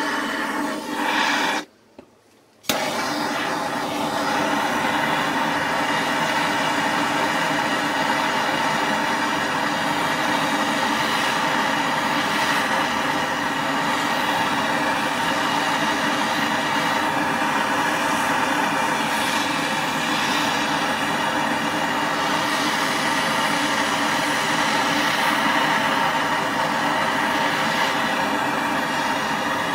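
Handheld gas torch running steadily with a constant roar while its flame heats a copper piece. The sound cuts out for about a second near the start, then resumes unchanged.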